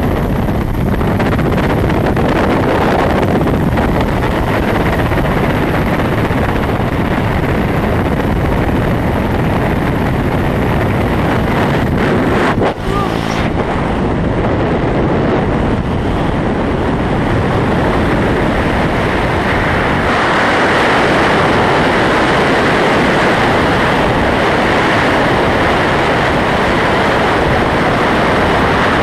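Loud, steady rushing of air over a parachutist's camera microphone during the exit from an Mi-8 helicopter and the fall that follows. Near the start the helicopter's engines and rotor are mixed into the rush. The sound drops out briefly about halfway through and turns a little brighter after that.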